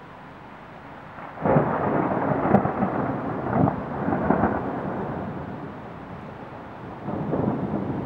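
Thunder: a sudden loud crack about a second and a half in, rolling on in several peaks and fading over the next few seconds, then a second roll of rumble near the end, over a steady background hiss.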